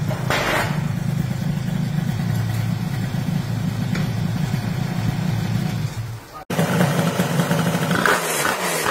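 Honda Dio scooter engine running steadily at idle. It cuts off abruptly about six and a half seconds in, and then a lower engine hum with some clatter follows near the end.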